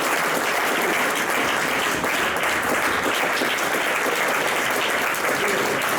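Audience applauding steadily at the end of a live set.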